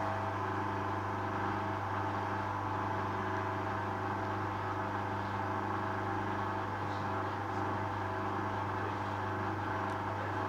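Hoover washing machine running its short interim spin after the wash: a steady hum and whine at an unchanging speed.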